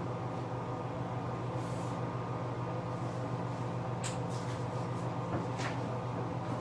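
Steady hum of an electric fan motor, with a few faint short clicks and hisses on top.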